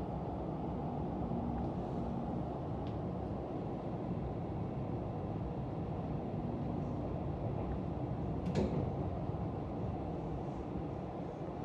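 Running noise inside a Dutch double-decker electric multiple-unit train, heard from the upper deck: a steady low rumble of wheels on rail, with one short knock about eight and a half seconds in.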